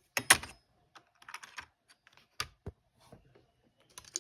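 Irregular plastic clicks and taps from a computer keyboard being handled during cleaning: a cluster of clicks at the start, scattered taps, two sharper knocks with a dull thud a little past the middle, and another cluster near the end.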